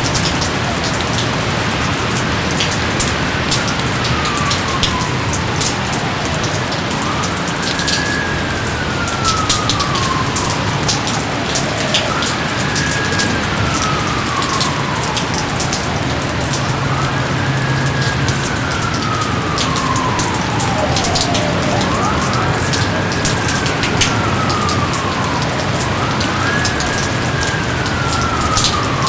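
Steady rain with scattered louder drop ticks. Over it, six times, a long whistle sweeps quickly up and then glides slowly down, about every five seconds.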